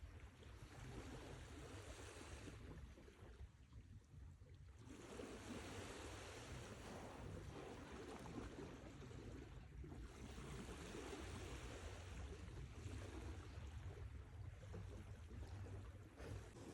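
Sea waves washing onto the shore: a surge of surf in the first couple of seconds, a brief lull, then a longer wash of surf from about five seconds in, over a steady low rumble.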